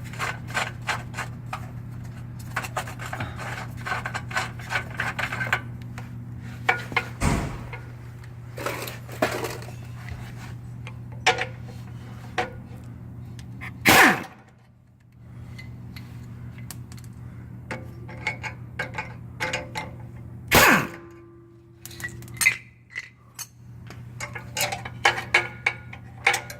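Metal hand tools clicking, clinking and knocking against metal, with a dense run of quick clicks in the first few seconds and two louder knocks about halfway through and about two-thirds of the way in. A steady low hum runs underneath.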